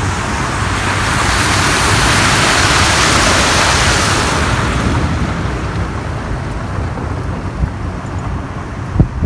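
Rushing creek water that swells up loud for a few seconds and then fades away, over the steady low rumble of the tour tram running.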